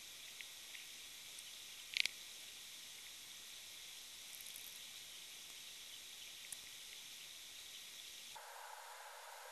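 Faint steady hiss of recording background noise, with one short sharp click about two seconds in and a few fainter ticks.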